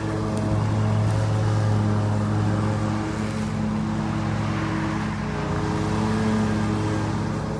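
Whelen WPS 4004 electronic outdoor warning siren sounding a steady tone during a test. The tone is low-pitched with overtones, and its loudness swells and eases slightly.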